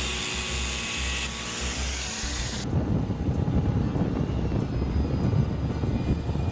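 Angle grinder with a cutting wheel cutting the stainless steel band on a wooden utility pole, a steady high grinding hiss. It cuts off abruptly about two and a half seconds in, leaving a low rumble.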